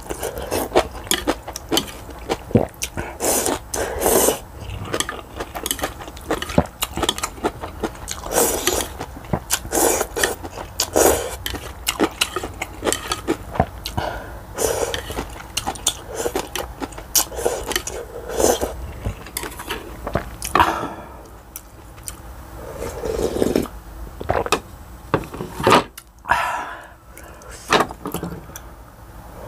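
Close-miked slurping and chewing of ramen noodles: a dense run of short wet smacks, sucks and clicks, thinning out to sparser chewing sounds in the last several seconds.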